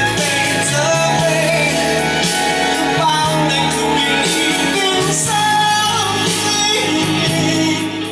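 A song with a singer over instruments, played back from cassette on a Nakamichi RX-303 tape deck.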